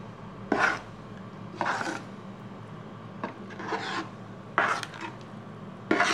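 A spoon stirring soup in a stainless steel pot, scraping against the pot in about five short strokes, roughly one a second.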